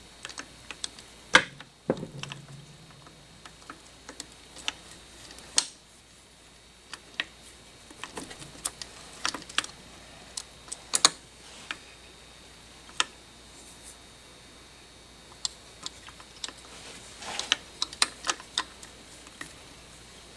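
Irregular clicks and light metallic knocks of hand tools and engine parts being handled during an engine teardown, with one louder knock about two seconds in and a quick run of clicks near the end.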